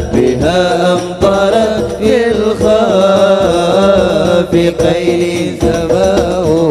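A man singing an Arabic sholawat (devotional praise song) solo into a microphone, in an ornamented melody with long bending notes, pausing for breath about a second in and again about five seconds in.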